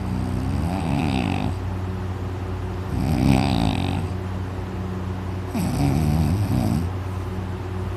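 A man in deep sleep snoring loudly: three long snores about two and a half seconds apart, over a steady low hum.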